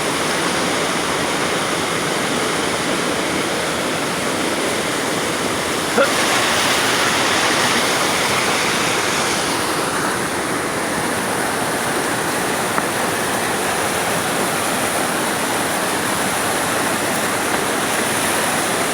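Rushing river water, a steady rush, growing a little brighter and louder for a few seconds from about six seconds in.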